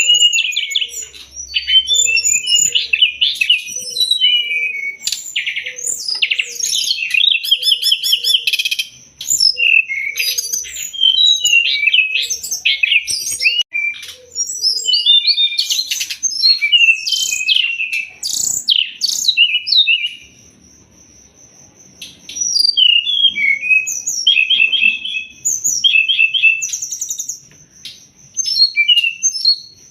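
Brown-chested jungle flycatcher (sikatan rimba dada coklat) singing a fast, varied song of chirps and trills, with short pauses and a longer break about twenty seconds in. A steady high thin tone runs underneath, and a soft low note repeats about every two-thirds of a second through the first half.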